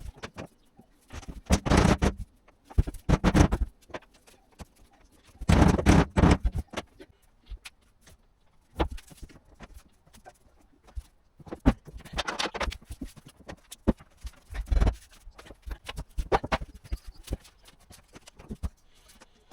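Laminate flooring work: irregular knocks, taps and scrapes of boards being cut and fitted, with several louder noisy bursts of about a second each.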